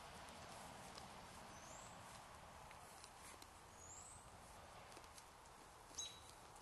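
Near silence: the steady hiss of a trail camera's microphone, with two faint rising high chirps and a short sharp click near the end.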